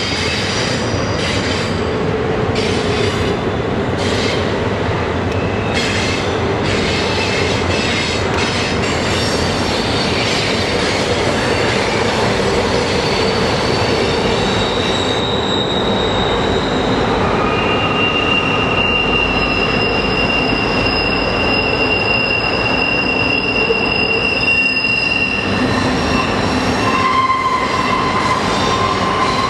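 Union Pacific double-stack intermodal freight cars rolling steadily across a steel truss bridge, with wheels squealing in thin high tones that come and go, one held for several seconds in the second half.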